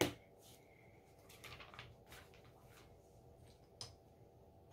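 Small plastic Lego pieces clicking as they are handled and pressed together: a sharp click at the start, a cluster of light clicks from about a second and a half in, and one more click near the end.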